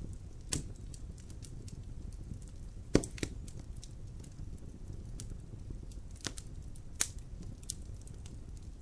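Fire in a fireplace crackling: a steady low rumble of the flames with sharp pops and snaps scattered irregularly through it, the loudest pop about three seconds in.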